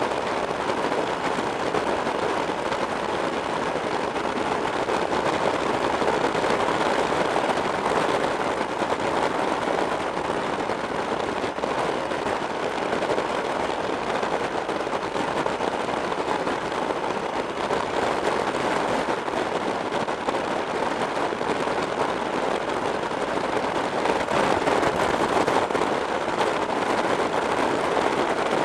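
Steady wind rush over a camera mounted on a motorcycle riding at road speed, with the bike's running noise buried in it.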